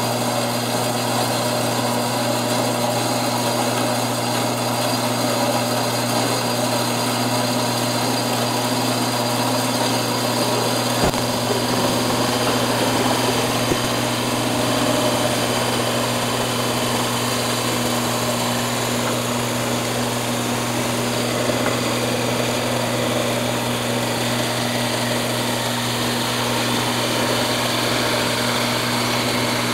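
Metal-cutting band saw running steadily, its blade cutting an angled cut through aluminium T-slot extrusion: a constant motor hum under the hiss of the blade in the aluminium. A single brief click about eleven seconds in.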